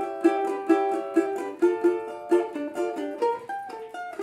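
Cavaquinho strummed in a choppy samba-style 'quadradinho' rhythm, with sharp string attacks about three a second. Paired notes a third apart ring between the strokes and step up in pitch about three seconds in.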